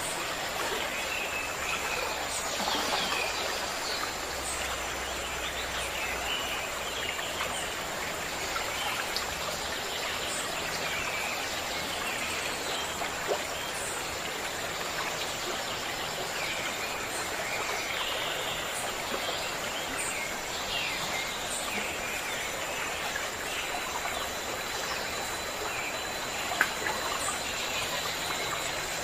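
Steady rush of a flowing stream with birds chirping on and off over it, and a constant thin high-pitched tone. There are two brief clicks, one near the middle and one near the end.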